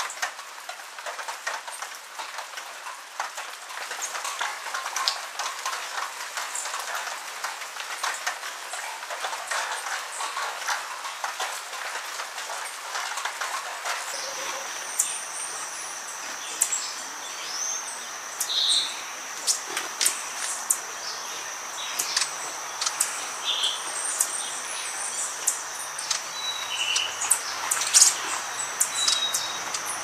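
Wet cloud-forest ambience: a steady patter of rain and dripping water with many small ticks. About halfway through it gives way to a steady high-pitched insect drone, with short bird chirps scattered over it.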